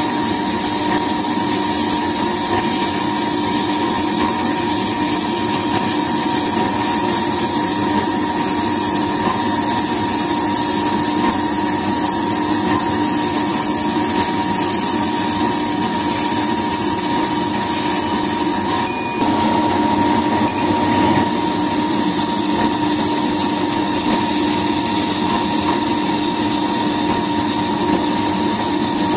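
Wisely Laser leather laser cutting machine running while its head moves cutting letters into leather: a steady machine hum and hiss with two constant tones. A brief high chirp sounds about two-thirds of the way through.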